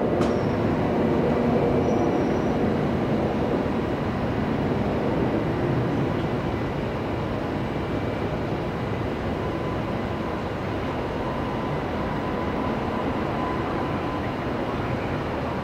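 Airbus A320neo jet engines running as the airliner rolls out along the runway after touchdown: a steady roar that slowly fades. A faint steady whine comes in about halfway through.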